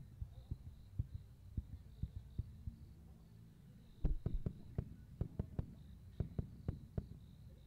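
Aerial firework shells bursting: a string of dull booms a few a second, thickening into a rapid volley about four seconds in.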